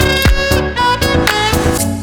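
Electronic dance music with a steady beat and a melodic lead line.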